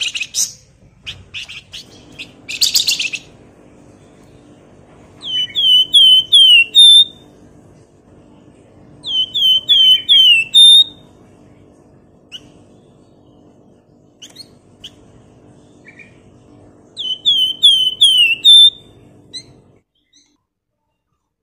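Flamboyan (wergan Jawa) songbird calling: two short harsh rasping chatters near the start, then three phrases of four or five quick, clear whistles, each sliding down in pitch and ending on a higher note, at about 5, 9 and 17 seconds in.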